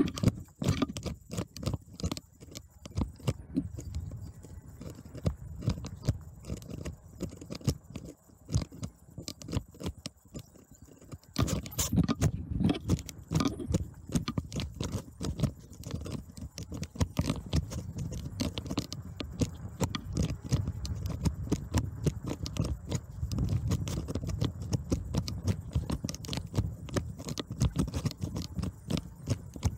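Bicycle and camera mount rattling and knocking as the bike rides over rough ground: a fast, irregular clatter with low wind rumble on the microphone. It grows louder and busier about a third of the way in, once the bike is on a bumpy dirt track through grass.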